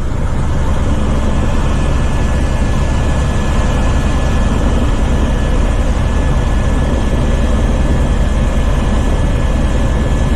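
Loud, steady drone of a helicopter's engine and rotor, heard from inside the cabin on the approach to land.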